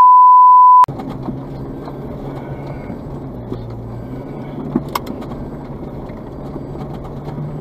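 A loud steady beep at one pitch, a censor bleep, cuts off about a second in. After it comes a four-wheel drive's engine running steadily as it climbs a dirt forest track, heard from inside the cabin, with one sharp click about five seconds in.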